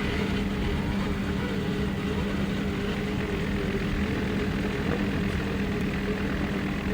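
Steady engine drone holding one pitch, with wind-like rushing noise over it.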